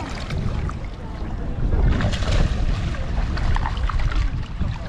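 Wind buffeting the microphone with a rumbling, gusting noise, over shallow water splashing around wading feet.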